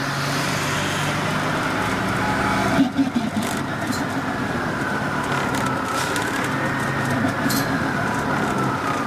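Orion V CNG transit bus running, a steady engine drone under a whine that slowly rises and falls in pitch. A short rattle about three seconds in.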